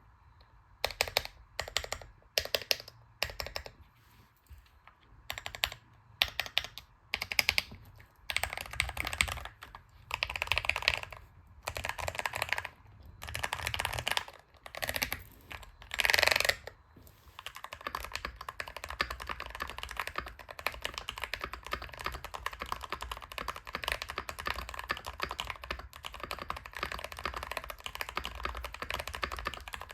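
Keychron K2 Pro mechanical keyboard being typed on: short separate bursts of rapid keystrokes for about the first seventeen seconds, then steady, continuous fast typing.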